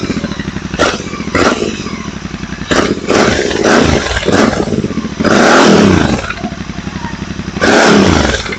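Royal Enfield GT 650's parallel-twin engine revved on the stand through Red Rooster Performance aftermarket exhausts fitted with dB killers. It gives a series of short throttle blips, then two longer revs, each dropping back to idle. Very loud.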